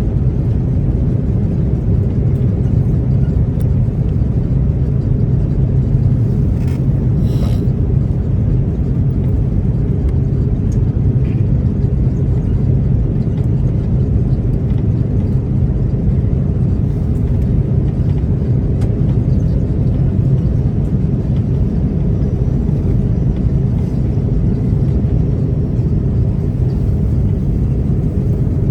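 Steady low rumble inside the cabin of an Airbus A330-323 on final approach: its Pratt & Whitney PW4000 engines and the airflow over the airframe, even in level throughout. A faint brief tick or two about seven seconds in.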